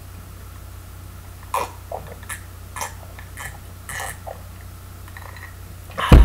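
A person gulping a drink from a glass, about seven short swallows in a row over a steady low hum. A loud thump near the end as the glass comes down.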